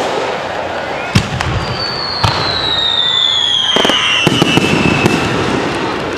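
Fireworks launching and bursting: several sharp bangs a second or so apart, with a long whistle sliding down in pitch through the middle. The sound starts to fade near the end.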